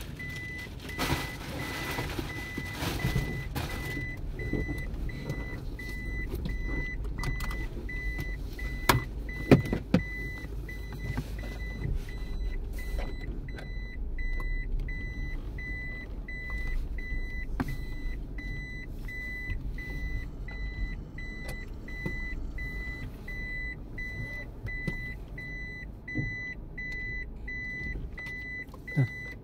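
A vehicle's reversing beeper sounding one high steady tone in long beeps with short even gaps, over a low engine rumble. Two sharp knocks come about nine and a half seconds in.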